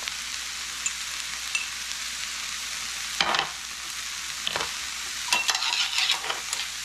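Sliced Swiss chard and carrot strips frying in oil in a pan, a steady sizzle, with a few scrapes and knocks of a utensil stirring them from about three seconds in.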